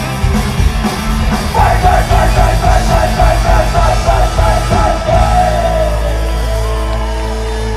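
Celtic punk band playing live: the singer shouts the vocal line over driving guitars and drums, then about five seconds in the drums drop out and a held chord rings on.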